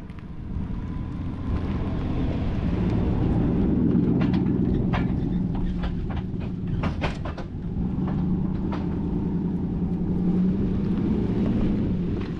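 A truck driving along the road: a steady low rumble of engine and tyres, with scattered sharp clicks and knocks in the middle.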